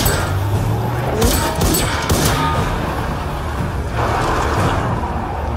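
Action-film soundtrack: dramatic background music with a quick run of about four sharp bangs, gunfire-like, a little over a second in.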